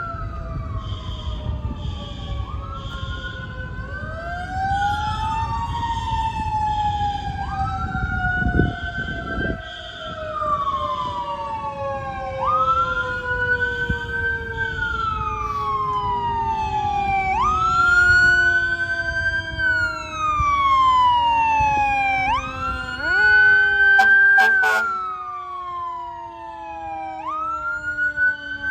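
Fire engine sirens: one siren rises sharply and falls away every few seconds, over a deeper siren tone that winds slowly down. A low diesel rumble sits under them for the first several seconds.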